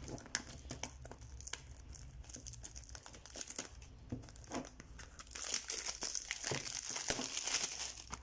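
Plastic packaging crinkling as it is handled and unwrapped by hand, with scattered small crackles; the crinkling thickens about five seconds in.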